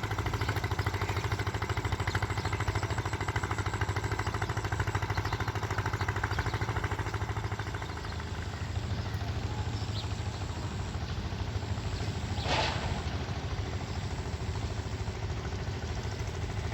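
An engine running steadily with an even low throb, easing off slightly about halfway through, and a brief hiss about three-quarters of the way in.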